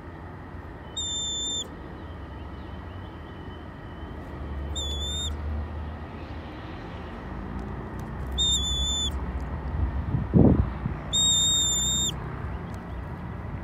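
Red-tailed hawk giving begging calls: four high, thin whistled notes, each under a second and held at one pitch, spaced a few seconds apart. A short low thump about ten seconds in.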